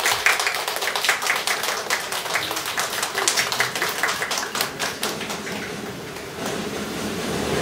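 Hand clapping from a small audience, many sharp claps a second, thinning out and dying away about five and a half seconds in.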